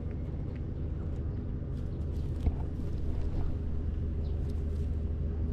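Steady low rumble with faint scattered clicks and rustles over it, and one sharper knock about two and a half seconds in.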